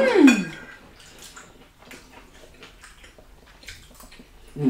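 A short voiced sound trails off in the first half second, then quiet close-up eating noises: soft wet chewing and mouth sounds with faint scattered clicks of forks on plates.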